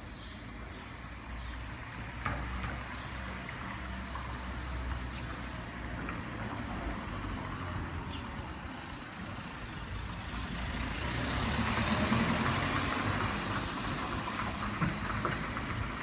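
Street traffic noise: a steady low rumble, swelling as a vehicle passes about eleven to thirteen seconds in, then easing.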